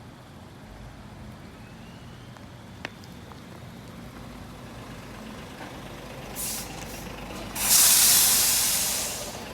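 Steady low traffic rumble with a single sharp click about three seconds in. A truck's air brakes then hiss: a short burst, then near the end a loud, longer hiss that fades away.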